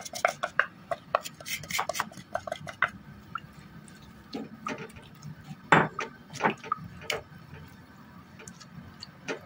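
Wooden spoon stirring garlic and spices in oil in a glazed clay tagine, scraping and clicking against the pot. The clicks come quickly for the first three seconds, then there are a few scattered knocks.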